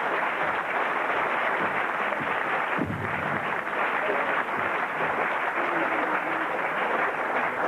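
Live theatre audience applauding and laughing steadily, a dense crowd clapping after a punchline.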